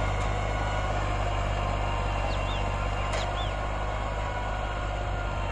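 2008 Massey Ferguson 260 turbo tractor's diesel engine running steadily under load, pulling a five-tine chisel plough through dry soil.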